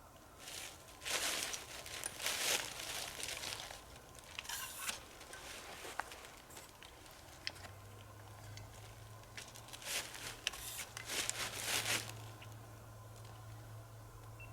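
Crunching and rustling of dry leaf litter underfoot, in two spells of a few seconds each, as someone walks slowly through winter woods. A low steady hum comes in about halfway.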